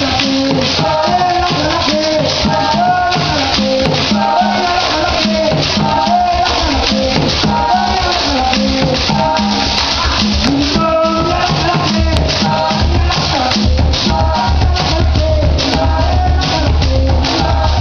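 Live band music: a shaker rattling steadily under a sung melody, with a deep bass line coming in about twelve seconds in.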